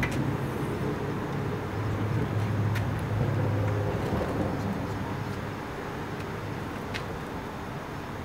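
Car engine idling with a steady low hum, which weakens about four to five seconds in; a few faint clicks come over it.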